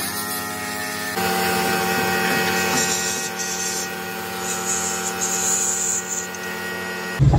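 Compressed-air paint spray gun hissing in several short bursts while spraying an engine cylinder head, over a steady mechanical hum that changes and gets louder about a second in.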